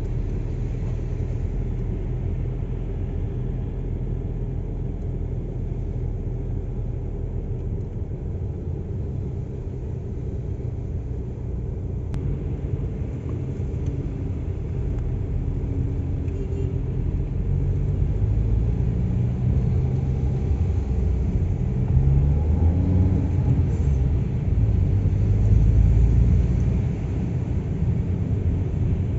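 A car on the move: a steady low rumble of engine and road noise. In the second half the engine note changes pitch and grows louder, then eases off near the end.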